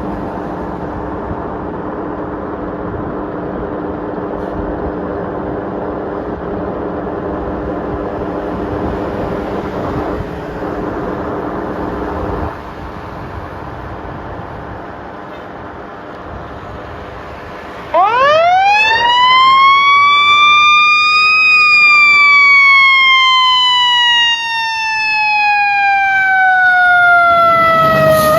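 A fire truck's heavy engine runs steadily, then drops quieter about twelve seconds in. About eighteen seconds in, the truck's siren comes on loud, winding up fast over about three seconds, then falling slowly for about seven, and starting to rise again at the end.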